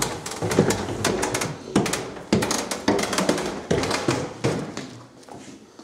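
Footsteps going down a flight of basement stairs: a string of uneven knocks, about two a second, growing fainter near the end.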